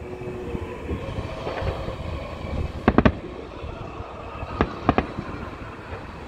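Aerial fireworks shells bursting: a quick cluster of three sharp bangs about three seconds in, then three more about a second and a half later, over a steady background noise.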